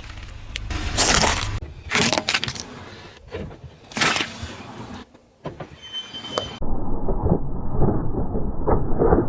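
Brittle objects cracking and crunching as they are crushed under a car's tyre: several sharp crunches, then a denser run of crackling, more muffled, over the last few seconds.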